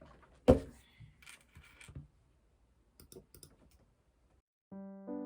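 A few scattered small clicks and knocks, one sharper knock about half a second in and a short cluster of clicks around three seconds in. Soft electric piano music begins near the end.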